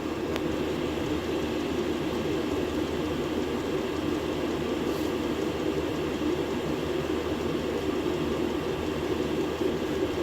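Diesel air heater running steadily on its highest setting, its blower fan and burner making a constant roar of hot air at the outlet, with no knocking from the fuel pump.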